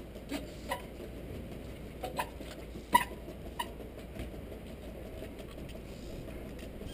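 Trials bicycle hopping up a stepped stone wall: about six sharp knocks as the tyres land on the stone in the first four seconds, the loudest about three seconds in.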